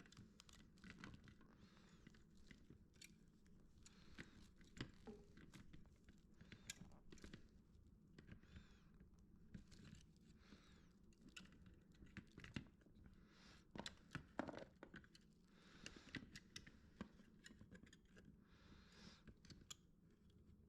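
Faint scattered light clicks and rustles of small parts being handled, as the vacuum hose's ground wire is worked on for resoldering, over near silence.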